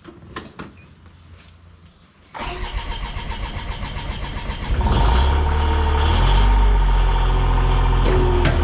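An engine starts up about two seconds in and runs. About halfway through it picks up to a louder, steady speed.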